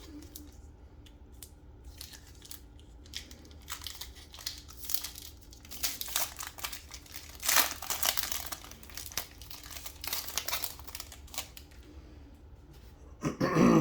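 Foil wrapper of a trading card pack being torn open and crinkled, with irregular crackling and rustling that grows busiest midway. A brief louder sound comes right at the end.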